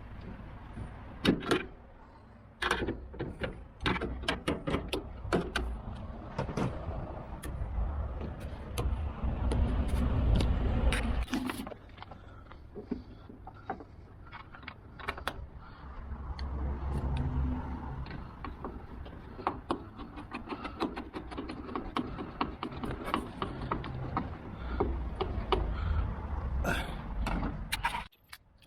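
Scattered metallic clicks, taps and knocks of hand tools and door-lock parts being worked inside a van's door, over a low rumble.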